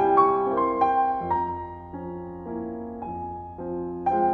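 Solo piano music: a flowing line of notes over held bass notes, softening about a second in and swelling again near the end.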